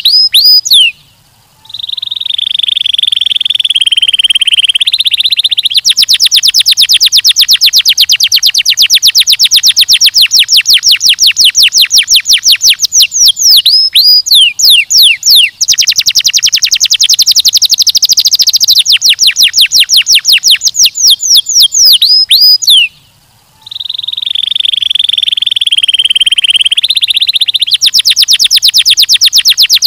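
Domestic canary singing a long, loud song of fast repeated notes and warbling rolls, breaking off briefly about a second in and again about 23 seconds in.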